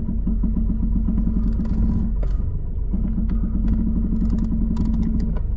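Peugeot 307 engine idling while the steering is worked, with knocks and clicks from the front suspension, which the mechanic puts down to a faulty sway bar (stabilizer) link. The engine's hum drops briefly a little after two seconds in.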